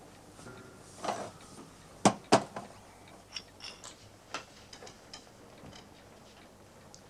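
Glasses and bottles handled on a metal drinks tray: two sharp knocks about two seconds in, then a run of lighter clinks and taps.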